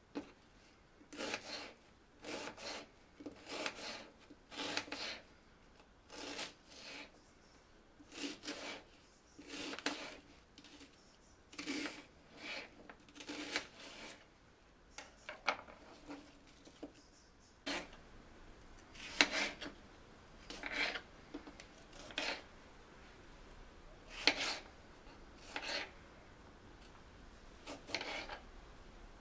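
Small kitchen knife cutting onion and then tomatoes on a plastic cutting board. The strokes come irregularly, about one a second, each a short knock of the blade on the board.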